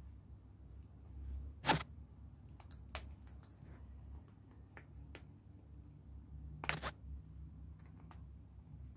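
Quiet hand handling of a small terry towel as it is folded and rolled: a few scattered clicks and taps, the loudest about two seconds in and a double one near seven seconds, over a low steady hum.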